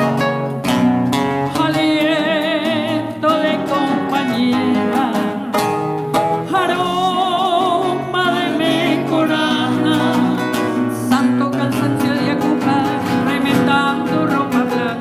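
Acoustic guitars of a traditional Colombian string trio playing an instrumental passage between verses, with a wavering melody line over strummed accompaniment.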